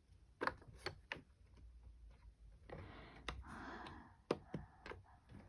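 A string of sharp, separate clicks with light handling noise: fingers working the switches and buttons on a My Talking Maddie talking alarm clock.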